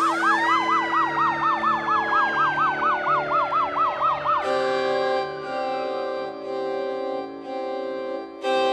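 Emergency-vehicle siren yelping, a fast rise and fall about four times a second with its pitch sliding lower overall, over sustained background music. The siren cuts off about four and a half seconds in, leaving held music chords that swell suddenly louder near the end.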